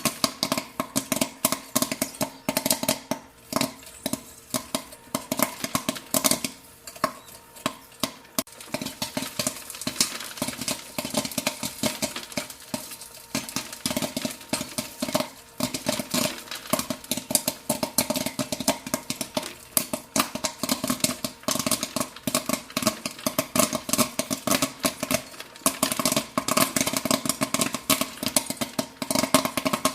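Popcorn kernels popping in a dense, irregular crackle of many sharp pops, over a steady hum from the cooker.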